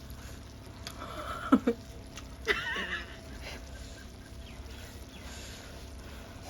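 Two brief wordless vocal sounds, squeal-like with bending pitch, from people reacting while eating, with a sharp click about a second and a half in. Otherwise only faint room background.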